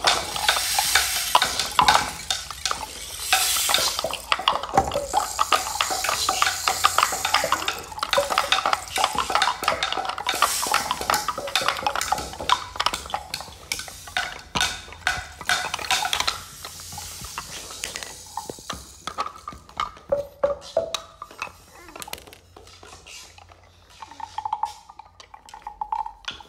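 Wooden hand percussion being scraped and shaken: a dense clatter of small clicks and rattling that thins out to scattered clicks in the last third.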